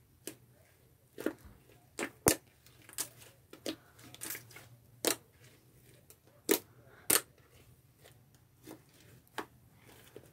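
White slime squeezed and kneaded by hand, giving about a dozen sharp pops and clicks at irregular intervals as air trapped in it is pressed out.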